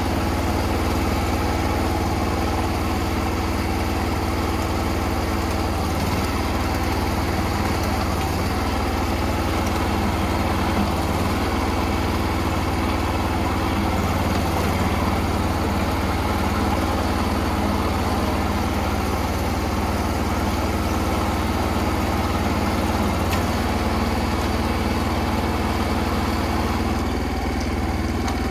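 Small engine idling steadily with an even, unchanging hum.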